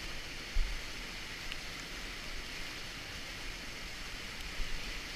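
Steady rushing of a whitewater river rapid. A dull thump about half a second in, and a couple of smaller ones near the end.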